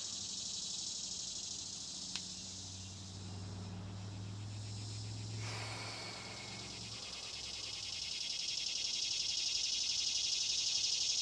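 Steady high-pitched chorus of chirping insects, growing louder near the end. A low hum runs underneath for a few seconds in the middle, and there is a single click about two seconds in.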